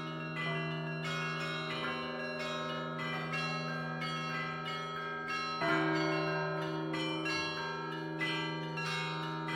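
Russian Orthodox church bell ringing: small high-pitched bells struck in a quick, steady rhythm over the long hum of a large bell, with a louder, heavier stroke a little past halfway.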